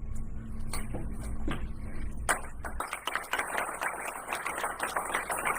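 A low steady rumble with a few scattered claps, then about two seconds in an audience breaks into applause: many hands clapping in a dense, irregular patter.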